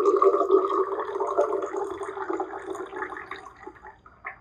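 Water poured in a thin stream from one drinking glass into another, trickling steadily and tapering off until it stops about four seconds in. A brief knock follows near the end.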